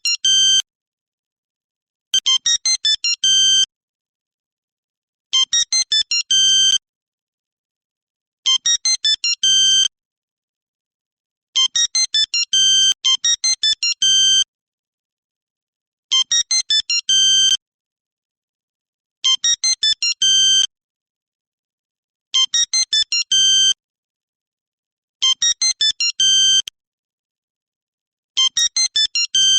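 Nokia mobile phone ringtone: a short phrase of quick, high beeping notes ending on a longer held note, repeating about every three seconds with silent gaps between.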